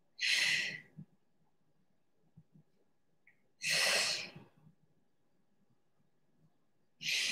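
A woman's audible exhalations, three breaths about three and a half seconds apart, the last running past the end, each one breathed out with a one-arm dumbbell press overhead.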